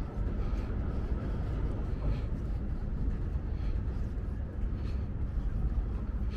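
Steady low rumble of city traffic, with faint light ticks every second or so.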